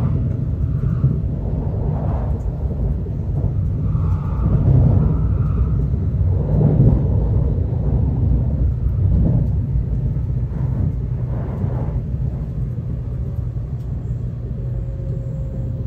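Steady low running rumble of a JR Central N700S Shinkansen train at speed, heard inside the passenger car, swelling and easing slightly.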